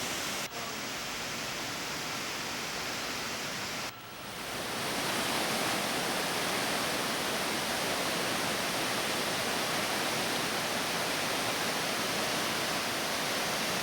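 Waterfall cascades rushing steadily. The sound drops out briefly about half a second in and again near four seconds in, then runs on slightly louder.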